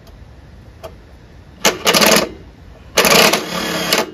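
Cordless power driver run in two short bursts, about a second and a half in and again about three seconds in, driving a bolt into the chipper's stand bracket.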